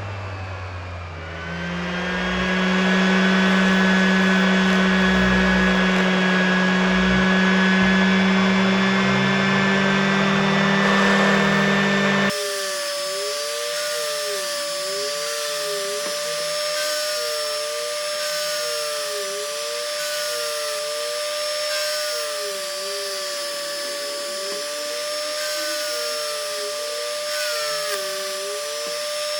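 Electric power tool motor running steadily. After an abrupt cut about twelve seconds in, a different, higher-pitched motor runs with a regularly wavering tone.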